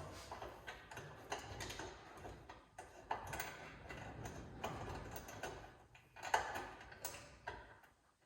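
Irregular small clicks, clinks and rattles of bolts and hand tools being worked while fitting subframe connector bolts.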